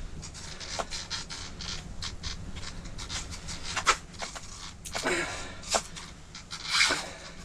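A person breathing hard in a couple of audible breaths, over scattered scratchy clicks and scrapes of gear being handled.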